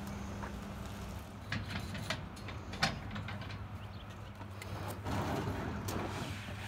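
A pickup truck's engine idling with a steady low hum, under a few sharp metal clanks and a short scraping rush about five seconds in as a fibreglass sea kayak is slid onto a hitch-mounted carrier bar.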